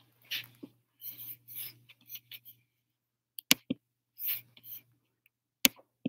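Scattered rustling and scraping noises with a few sharp clicks, two of them louder and about two seconds apart, over a faint low hum.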